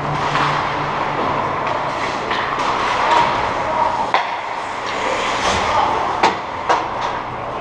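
Ice hockey play in a large, echoing indoor rink: a steady wash of skate blades scraping the ice, broken by a few sharp clacks of stick and puck, the loudest two near the end as the puck flies toward the boards.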